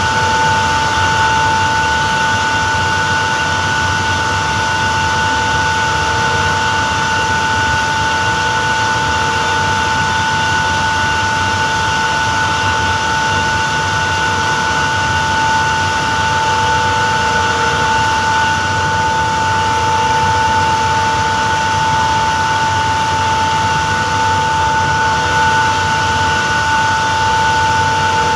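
Refrigeration screw compressor of an air-handling unit running steadily, a constant machine hum with a high, unchanging whine.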